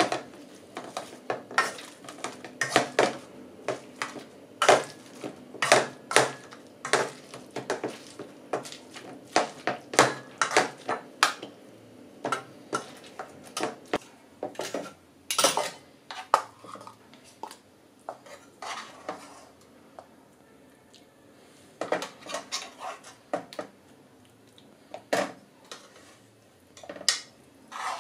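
Metal potato masher mashing boiled pumpkin in a metal cooking pot, clacking against the pot in a steady series of knocks about one or two a second. The knocks thin out about two-thirds of the way through into a few scattered clinks and scrapes.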